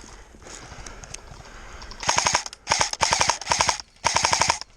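Airsoft rifle firing three rapid full-auto bursts starting about two seconds in, each a fast, even rattle of shots lasting under a second.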